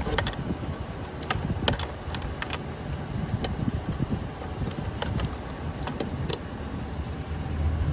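Toy RC car running in its demo mode, a low rumble with scattered sharp clicks and knocks at irregular intervals.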